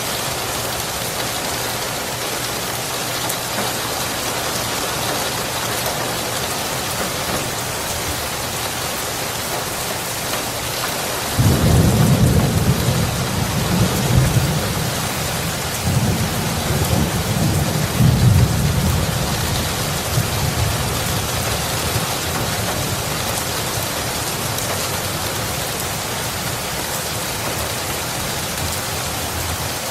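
Steady heavy rain, with a roll of thunder breaking in suddenly about a third of the way through. The low rumble surges several times over about ten seconds before dying away under the rain.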